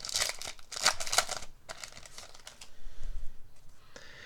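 Foil booster-pack wrapper crinkling and tearing as a Yu-Gi-Oh pack is opened, loudest in the first second and a half, followed by quieter handling of the pack and cards.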